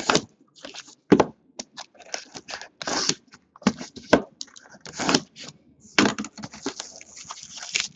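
Plastic shrink wrap on a trading card box crinkling and tearing as it is peeled off, in quick irregular crackles, with a few louder knocks of the box being handled.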